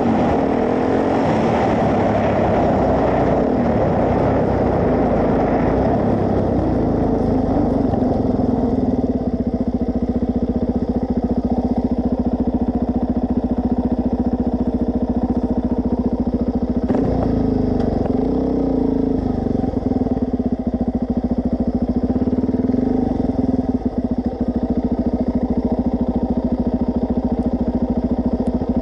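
Suzuki DR-Z400S single-cylinder four-stroke engine running under way, picked up by a camera mounted on the bike. The sound carries more high noise for the first several seconds, then settles to a steady hum with a few brief changes in engine note around the middle.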